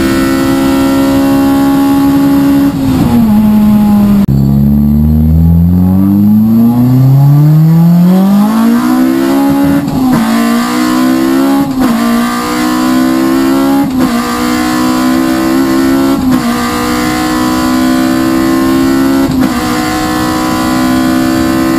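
Toyota AE82 Corolla's BlackTop 20-valve 4A-GE four-cylinder engine at full throttle, heard from inside the cabin: first held at high revs, then after a cut pulling up from low revs with a long steady rise in pitch, followed by a string of quick upshifts through a Quaife dog-engagement gear kit, each a brief sharp dip in pitch about every two seconds.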